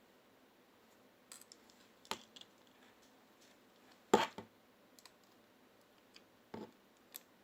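A few scattered light clicks and taps of small hard parts of a cordless hair clipper being handled. The loudest is a sharp double click about four seconds in.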